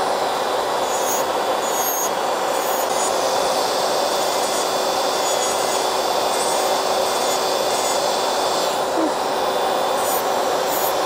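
Electric nail drill (e-file) with a 5-in-1 bit running at a steady whine while it files gel colour off a fingernail with light pressure, over the even rush of a tabletop nail dust collector.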